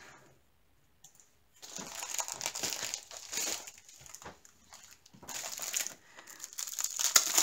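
Clear plastic packaging of a diamond painting kit crinkling as it is handled. It starts about a second and a half in, after a near-silent moment, and breaks off briefly near the end.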